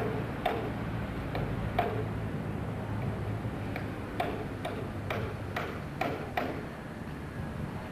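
A run of sharp knocks, about two a second, that stops about six and a half seconds in, over a low steady hum.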